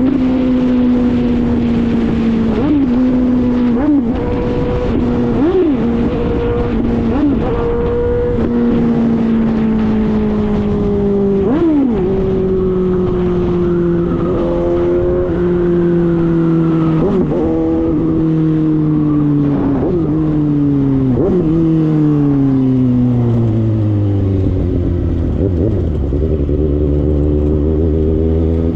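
Suzuki GSX-S750's inline-four running loud through an unbaffled JBK exhaust tip while riding. The engine note sinks gradually with several quick dips and a few stepwise drops, settling to a low steady note near the end as the bike slows.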